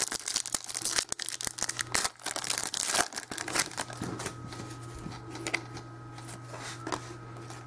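A trading-card pack wrapper being torn open and crinkled by hand, a dense crackling for the first few seconds. It gives way to softer rustling as the cards are handled and sorted.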